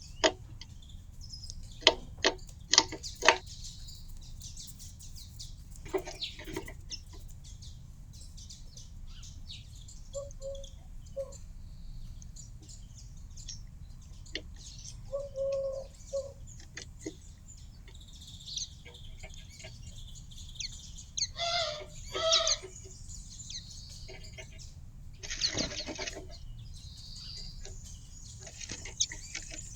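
Small garden birds chirping at a feeder, with a run of sharp taps in the first few seconds and a couple of louder rustling bursts later on, over a steady low background rumble.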